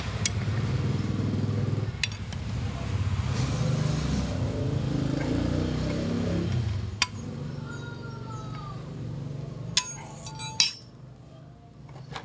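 A motor vehicle engine running steadily, which stops or fades away about seven seconds in. It is followed by a few sharp metallic clinks and a brief high glide.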